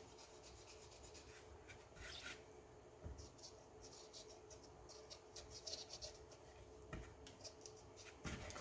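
Faint scratching of a large black Sharpie marker colouring in with short strokes, with a few soft knocks.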